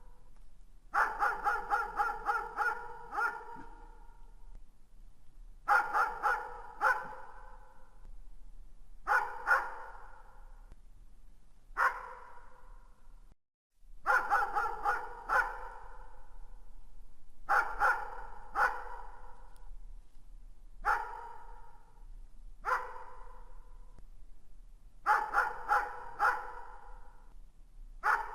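A dog barking in the distance, in single barks and quick runs of several, each bark trailing off in an echo, with pauses of a second or more between groups. The sound cuts out briefly about halfway through.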